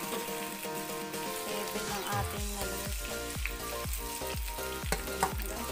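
Banana-blossom fritters sizzling steadily as they fry in oil in a pan. Background music plays over it, and a regular bass beat comes in about two seconds in.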